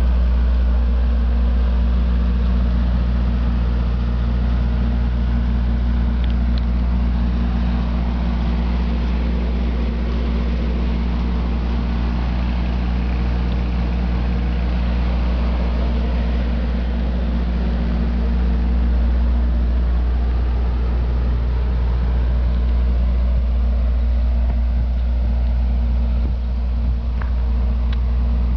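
Generator engine running steadily: a constant low hum with even overtones that holds the same pitch and level throughout.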